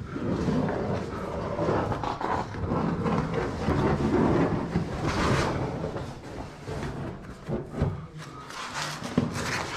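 Irregular scraping and rubbing of a caver's clothing and gear against rock while squeezing through a tight crawl, with a few sharp knocks.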